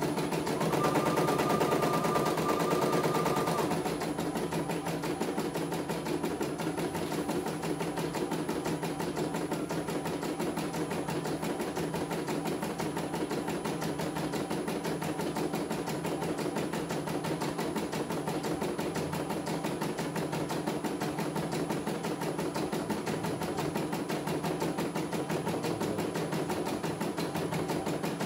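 CNY E900 portable computerised embroidery machine stitching a design, its needle going in a fast, steady clatter of stitches. For the first few seconds it is louder, with a steady high whine over the stitching.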